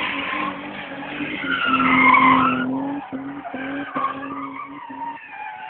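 Holden VS Commodore ute doing a burnout: the engine is held at steady high revs while the rear tyres squeal and skid on the pavement, loudest about two seconds in. After that the revs dip a few times and the squeal fades.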